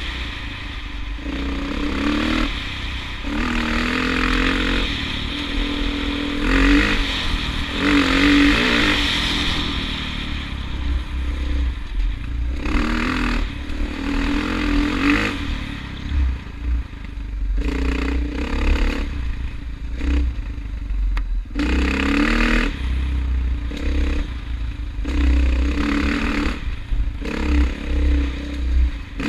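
A motor vehicle's engine running and repeatedly speeding up and easing off, with clattering and rattling mixed in and a heavy low rumble throughout.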